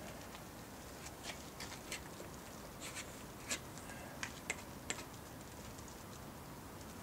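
Hand scraper scratching at a bronze through-hull skin fitting in short, irregular strokes, scraping it back to bright metal. The strokes are faint and sparse, mostly in the first two-thirds.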